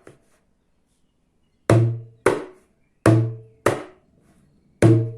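Hand strokes on a small djembe: five sharp strikes falling in pairs, each pair a deeper stroke with a low ringing tone followed by a drier, sharper one. This demonstrates a harder stroke made with a particular part of the hand.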